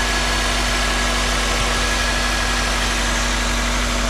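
Honda CR-V four-cylinder engine idling steadily and smoothly, purring with no misfire after fresh ignition coils were fitted.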